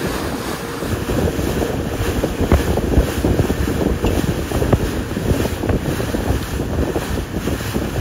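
Wind buffeting the microphone aboard a moving boat, over the rush of seawater, with many small crackling hits.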